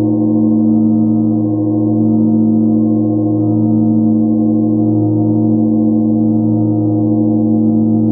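Large bilo, a flat hanging metal plate bell tuned to 111 Hz, ringing on after a padded-mallet strike: a deep, steady hum of several tones with a slow wavering about once a second.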